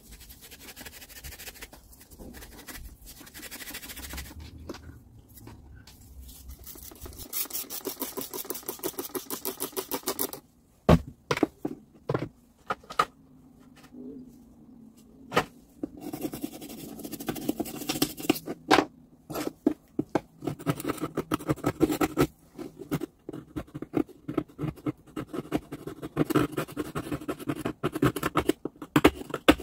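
Rapid hand scrubbing or scraping strokes on a small part, in two long runs, with a few sharp knocks in the pause between them.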